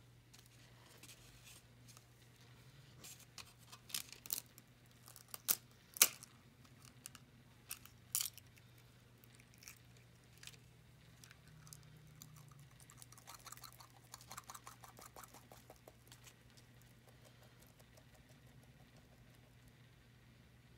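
Brown chicken eggshell being cracked and picked apart by hand over a foam plate: a few sharp cracks and clicks in the first half, then a run of faint rapid crackling.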